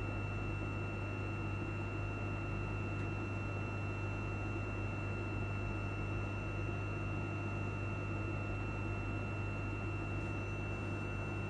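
Steady hum and hiss inside the carriage of a Class 334 electric multiple unit standing still: its ventilation and on-board electrical equipment running, with a thin high whine held steady over a low hum.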